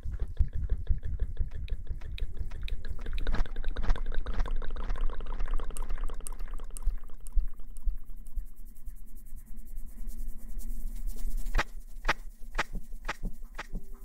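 Close-up ASMR sounds made by cupped hands over a stereo pair of microphones: dense crackling and rustling for the first half, thinning to sparser sharp clicks and taps near the end, over a steady low hum.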